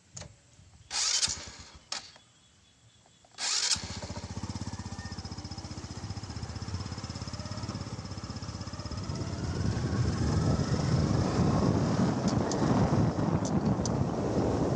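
Small motorcycle engine starting: a few short rasping bursts, then the engine catches about three and a half seconds in and runs with a fast, even beat. It grows louder from about halfway through as the bike rides off along a dirt track.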